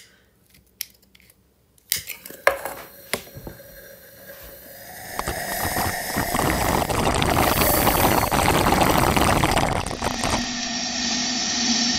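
Colour smoke bomb burning inside an open aluminium drink can. A few clicks and knocks in the first seconds, then a hissing, crackling rush of smoke that builds from about four seconds in, is loudest for several seconds, and eases a little near the end.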